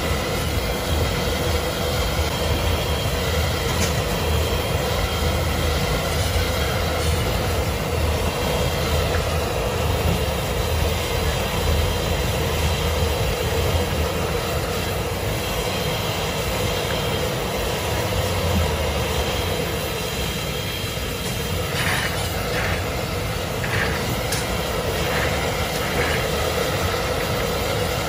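Steady rumbling noise with a constant hum running under it, with a few short clinks or clicks near the end.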